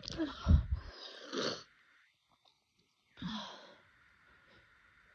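A person sneezing forcefully in an allergy fit: one loud sneeze about half a second in, followed by a breathy exhale. After a pause of over a second comes a short breathy sniff or breath.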